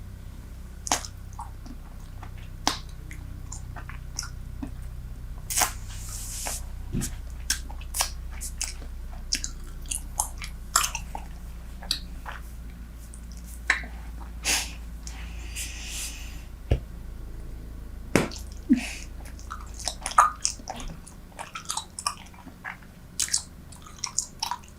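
Close-miked chewing of Super Bubble bubble gum: wet, sticky smacks and clicks at irregular intervals, with a couple of short breathy hisses. The gum is fresh and still soft.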